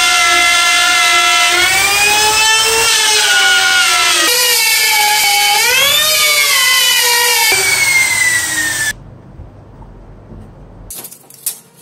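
Compact trim router running at high speed and cutting a circular groove in particleboard on a pivoting circle jig, its whine dipping and rising in pitch as the bit takes load. The router stops about nine seconds in, leaving faint handling sounds and a few light clicks.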